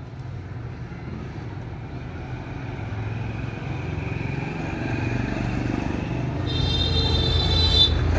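Street traffic rumbling, growing louder as a vehicle draws near, with a short high-pitched tone from a passing vehicle for about a second and a half near the end.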